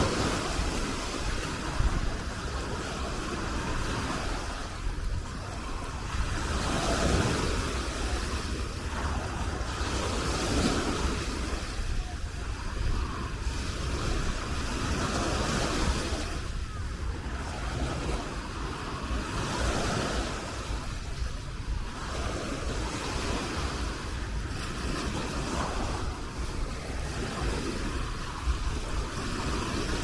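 Small waves breaking and washing up a sandy shore, the surf swelling and fading every few seconds, with a steady low rumble of wind on the microphone.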